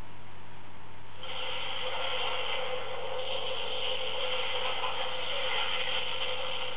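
Electronic warp core breach sound effect from a prop PADD's small speaker. A steady rush of noise starts about a second in and runs for several seconds. It marks a simulated core explosion after the overload level was lowered only one step instead of two.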